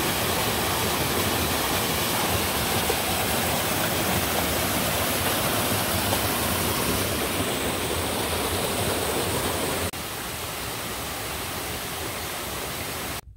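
Zealand Falls: water cascading over granite ledges and boulders, a steady rushing roar. It drops a little in loudness about ten seconds in and cuts off suddenly just before the end.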